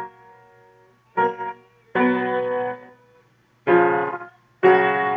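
Piano played slowly in separate struck notes or chords with short pauses between them, four in all, two of them held for about a second as they fade. A steady low hum from the old reel-to-reel tape recording lies underneath.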